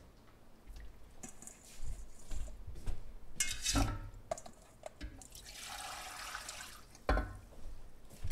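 Wet kitchen handling sounds: irregular knocks and splashes, with about a second and a half of running or pouring water a little past the middle.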